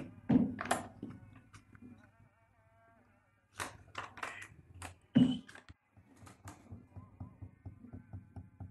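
Paper photos and envelopes being handled on a wooden desk: short rustles and taps, the loudest a thunk about five seconds in.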